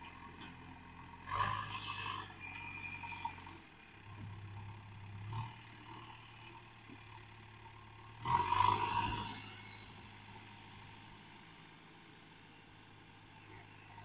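Diesel engine of a JCB 3DX backhoe loader running as the machine drives off, a steady low hum with two short louder bursts, about a second in and again about eight seconds in.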